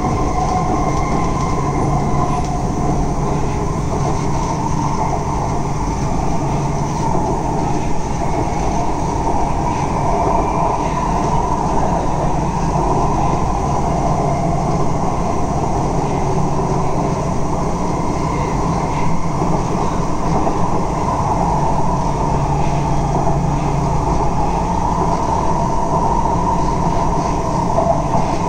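Chennai Metro train running between stations, heard from inside the carriage: a steady rolling noise with a constant low hum.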